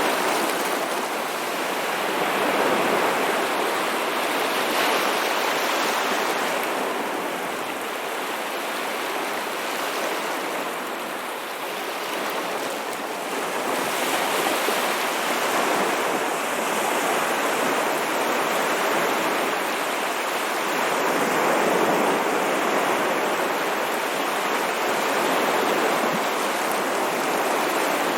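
Ocean waves washing ashore: a continuous rushing surf that slowly swells and eases every few seconds.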